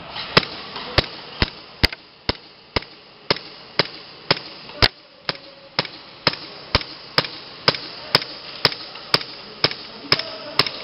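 Airsoft gun firing single shots in a steady rhythm, a sharp crack about twice a second, some cracks louder than others.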